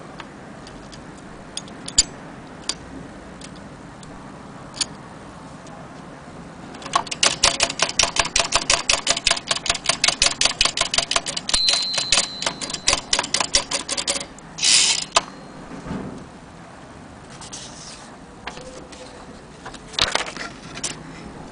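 Keys of a 1930 Corona portable typewriter being struck: a few scattered clacks, then a fast, even run of about five or six keystrokes a second for around seven seconds, with a short ring partway through. A longer sliding rasp follows, like the carriage being returned.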